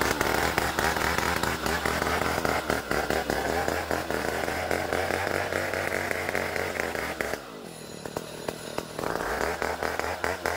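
Homemade chainsaw mill running under load, cutting Borneo ironwood (ulin). The sound drops away for about a second and a half about three-quarters of the way in, then comes back.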